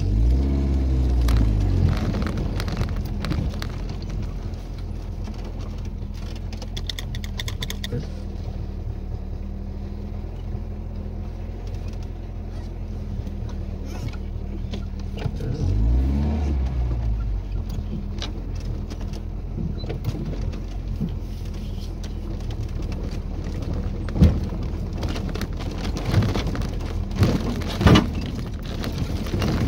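Tofaş Kartal's engine running inside the cabin while the car drives a rough dirt track, its pitch rising and falling at the start and again about halfway. Sharp knocks and rattles come in near the end as the car jolts over bumps.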